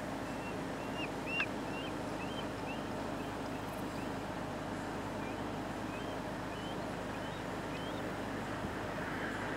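A bald eagle calling: a long series of short, high whistled chirps, each with a quick upward hook, about two a second and uneven in spacing, over a steady hiss of outdoor background noise.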